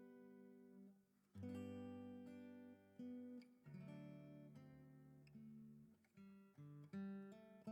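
Acoustic guitar quietly strumming slow chords, each chord left to ring before the next strum.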